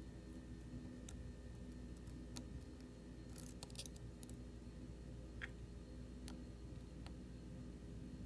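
Faint, irregular metallic clicks and light scrapes of a lock pick working the pins of a Medeco M3 lock cylinder under a tension wrench, with a quick cluster of ticks about three and a half seconds in. A low steady hum lies underneath.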